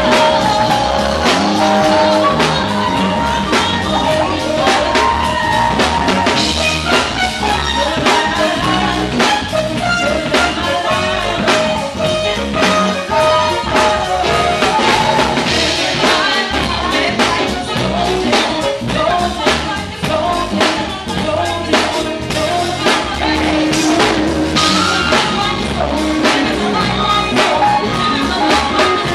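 Live band music: drum kit keeping a steady beat under bass and a singing voice.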